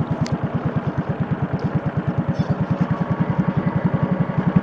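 Small boat engine running slowly, a steady even putter of about ten beats a second.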